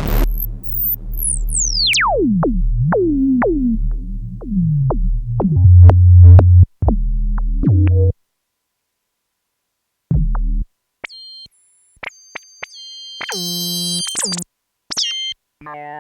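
Arturia MicroFreak synthesizer playing short notes that drop steeply in pitch like laser zaps, about two a second, over a low bass that grows louder around six seconds in and cuts off abruptly. After a short gap there is a brief bass note, then high held tones and short chords.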